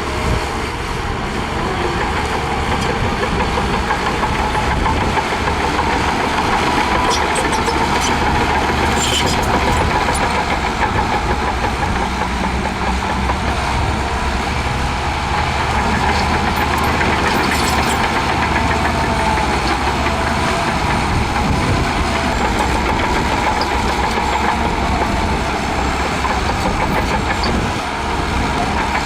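Heavy diesel engine of earthmoving machinery running steadily and continuously, its pitch wavering slightly as the load changes.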